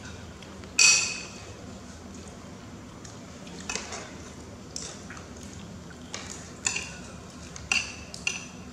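Metal spoon clinking against a plate as rice is scooped up, with about six sharp clinks. The loudest comes about a second in.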